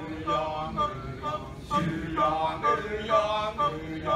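Kecak chorus of men chanting and singing together without instruments, in short repeated phrases.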